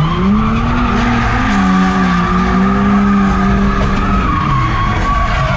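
Drift car engine held high in the revs, its pitch rising and dipping as the throttle is worked, over a continuous squeal of tyres sliding sideways.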